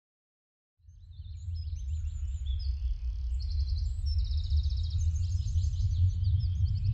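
Silence for almost a second, then outdoor ambience fades in: birds chirping and trilling over a low rumble.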